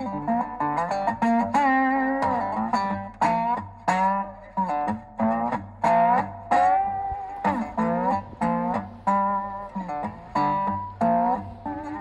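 Background music: a guitar picking single notes that bend and slide in pitch over a steady bass line.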